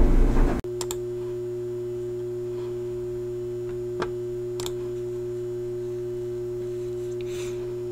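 Intro theme music cuts off sharply about half a second in. A steady electrical hum of a few held tones follows, broken only by two faint clicks around four and four and a half seconds in.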